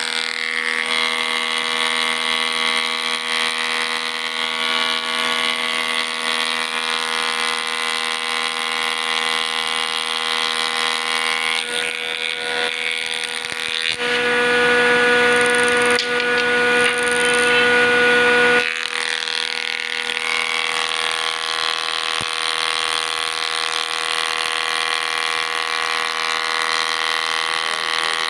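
Combination planer-jointer machine running with a steady whine, while a curved wooden piece is shaped against the small cutter on its side spindle. A little past halfway the sound grows louder and stronger for about four seconds, then drops back abruptly.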